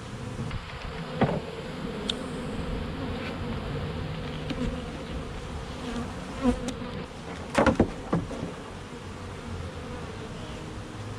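Honeybees buzzing steadily around an open hive, a continuous hum. A sharp knock about a second in and a louder pair of knocks near eight seconds cut through it.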